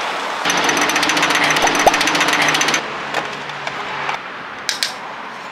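Rapid mechanical clattering for about two seconds, then a few light clicks as a car's fuel flap and filler cap are opened at a petrol pump.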